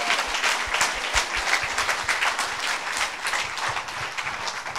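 Congregation applauding: many hands clapping together, easing off slightly near the end.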